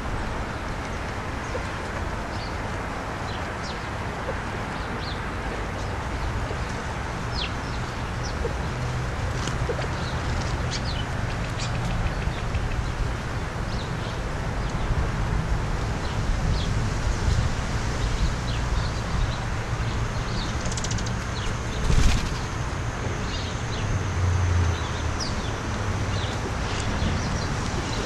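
Steller's jays' wings flapping as the birds hop, land and take off close by, over a steady background hiss. Scattered faint ticks run through it, with one sharp click about three-quarters of the way through.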